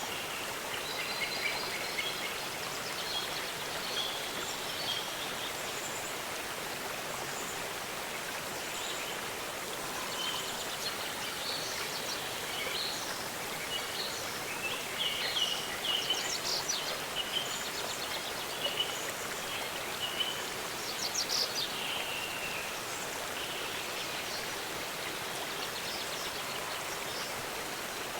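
Waterfall rushing steadily, with small birds chirping and trilling over it in short scattered calls, busiest in the middle stretch.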